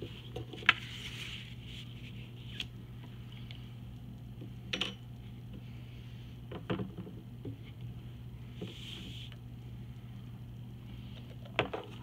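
Paper being handled and slid on a wooden tabletop: soft swishes and a few sharp taps and knocks, the loudest about a second in and a small cluster near the end, over a steady low hum.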